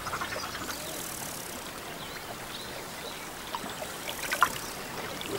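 Faint steady wash of flowing, trickling river water.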